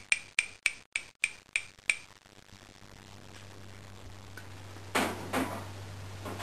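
A series of light, ringing taps on a hard object, about three or four a second, stopping about two seconds in.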